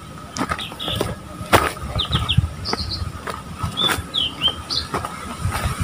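Footsteps crunching on a dry, leaf-strewn dirt trail, roughly one step a second, while small birds give short high chirps, some in quick runs of three.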